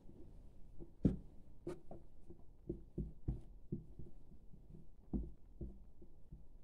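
Hands handling and smoothing a fabric garment: soft rustling with irregular light knocks, the sharpest about a second in.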